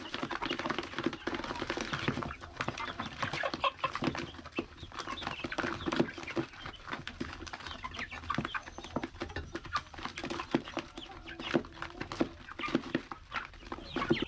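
A flock of chickens clucking, many short calls overlapping, with frequent sharp clicks and taps among them.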